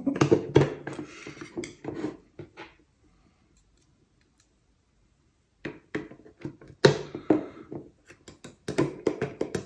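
Small clicks and taps of metal forceps handling seals in a metal detector's control-knob housing, in two spells with a near-silent pause of a few seconds between them.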